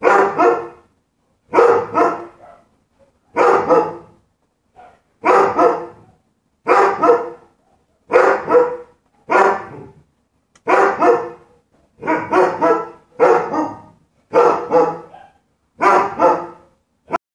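A dog barking over and over, about a dozen loud bouts of barking roughly every second and a half.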